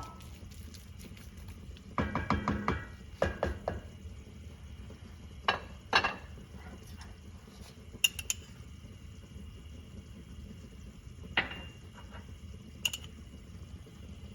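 Kitchen utensils clinking and knocking against a pan and dishes: a quick rattling run of knocks a couple of seconds in, then single clinks every few seconds.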